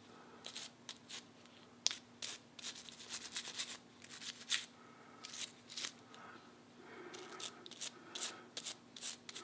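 Toothbrush bristles scrubbing a small metal sewing-machine bobbin-winder part coated in dish soap: quick, irregular scratchy strokes, some louder than others.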